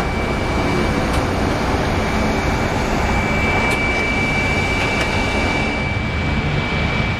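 Steady, loud roar of aircraft jet turbines on the apron, with a steady high whine running through it.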